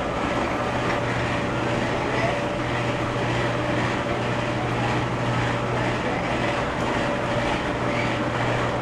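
Carousel drive machinery running steadily under power on its replacement main drive shaft and chain, an even mechanical rumble with a low hum and a faint steady whine, with no knocks or surges.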